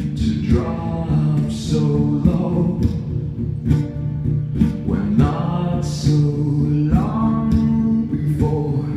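A man singing live into a microphone while playing an acoustic guitar: a slow solo acoustic song.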